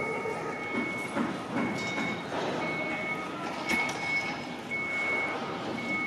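Vehicle warning beeper sounding a high, evenly spaced beep about once a second, over city street noise, with a single knock about three and a half seconds in.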